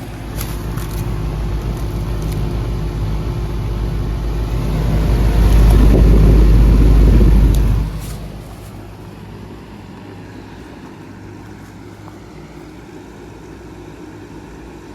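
2019 Bard wall-mount heat pump running in heat mode. A loud low rumble builds over several seconds and drops off sharply about eight seconds in, leaving a quieter steady hum.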